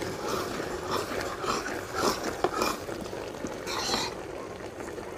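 Potato-and-aubergine curry simmering in an iron kadhai, bubbling irregularly, with a steel ladle stirring and knocking against the pan now and then.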